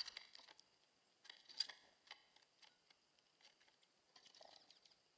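Faint, sharp chips and ticks from small birds, coming in scattered clusters a second or two apart.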